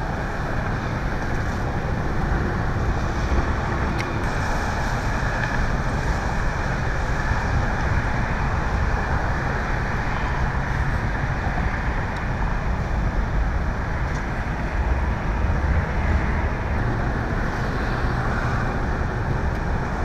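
Steady vehicle and traffic noise: an even rumble with a low engine hum, unbroken throughout.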